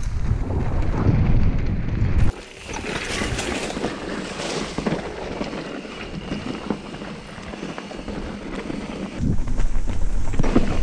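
Mountain bike riding on a trail, with wind rumbling hard on the microphone. The rumble drops away suddenly about two seconds in, leaving a quieter stretch of scattered clicks and rattles. It comes back strongly near the end.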